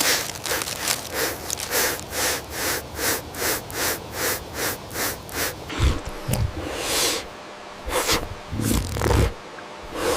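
An animal sniffing rapidly, about three short sniffs a second, then a few longer, heavier snorts and huffs with a deeper rumble in the second half.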